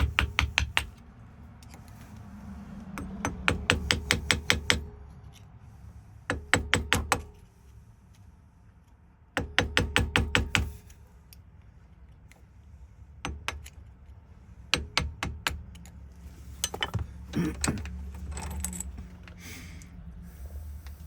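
Fast runs of light metal taps, about eight a second, in several bursts of one to two seconds, then scattered single clicks and knocks: a small hammer or punch tapping on a Ford lock cylinder to work its cap loose.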